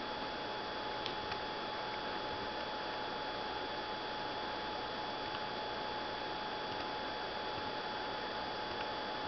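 Steady hiss with a constant thin whine and a few faint ticks; no snoring or breathing rhythm is heard.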